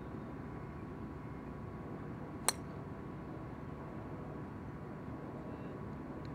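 A golf club striking a golf ball off the tee: a single sharp click about two and a half seconds in. Under it is a steady low rumble with a faint steady hum.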